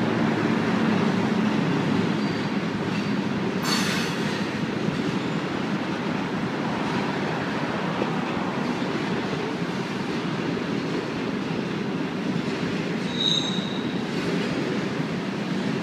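Freight train of covered hopper cars rolling past, a steady rumble of steel wheels on rail. A short high squeal sounds near the end, with a sharper burst about four seconds in.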